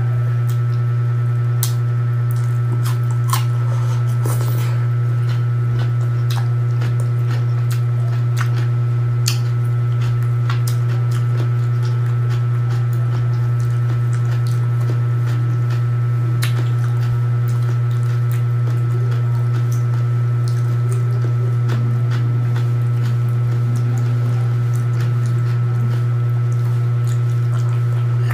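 Close-up wet eating sounds: chewing, squishing and small clicks as vinegar-marinated raw fish and rice are eaten by hand. Under them runs a loud steady low hum that does not change.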